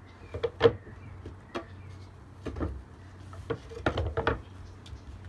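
Irregular sharp knocks and taps on a wooden deck as a dog and its handler move among sample containers set on boards, some coming in quick pairs; the loudest is a knock just under a second in.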